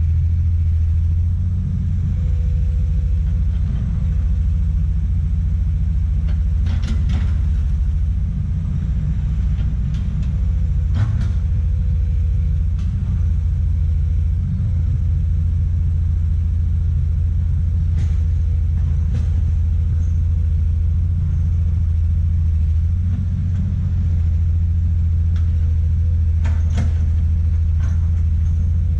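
Komatsu PC200 excavator's diesel engine running with a steady low rumble, with a few short knocks scattered through, about five in all.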